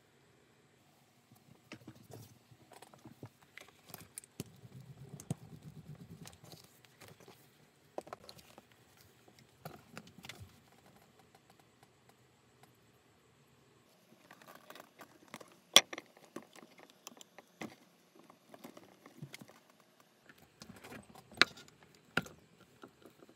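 Leather pieces being handled and pressed down on a cutting mat, with soft rustles and light taps. Later a bench hand press drives a stitching chisel through the leather to punch stitching holes, with clicks and a few sharp knocks, the loudest about two-thirds of the way in and two more near the end.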